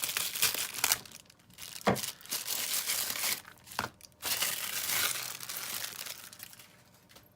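Parcel packaging being opened by hand: crinkling and tearing in stretches, with two sharp snaps about two seconds apart, fading out near the end.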